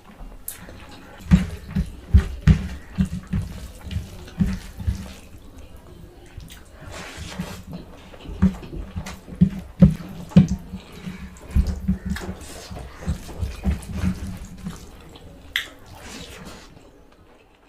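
A person eating messily: irregular wet chewing, smacking and slurping sounds, several per second, fading out near the end.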